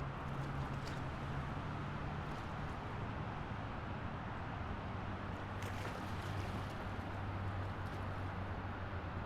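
Steady highway traffic: a continuous hiss of passing vehicles with a low engine drone underneath.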